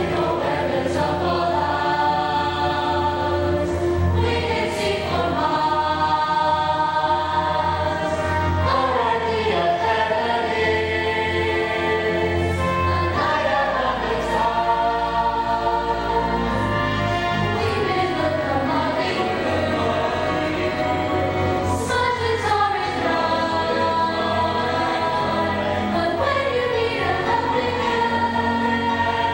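A stage chorus of many voices singing held notes together over musical accompaniment, with the pitch gliding up and down several times.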